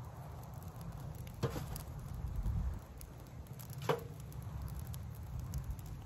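Wood fire burning in a fire pit, with two sharp crackling pops about a second and a half and four seconds in, over a steady low rumble.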